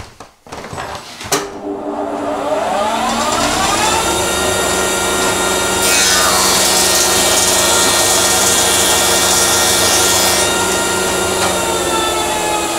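Planer-thicknesser with a two-knife cutter block switched on with a click, its motor rising in pitch to full speed over about two seconds and then running steadily. For about four seconds in the middle a narrow board is planed, adding a loud, high-pitched cutting noise, and then the machine runs on empty. The freshly adjusted in-feed and out-feed rollers pull the board through with no trouble.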